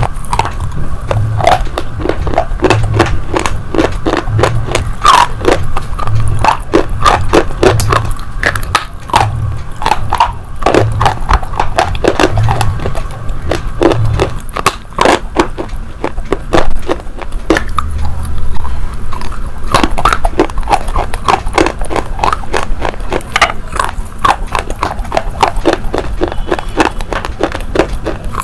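Close-miked crunching and chewing of brittle slate pencils, a dense run of crisp cracks and gritty crunches. A soft background track with a low, even beat plays under it until about halfway through.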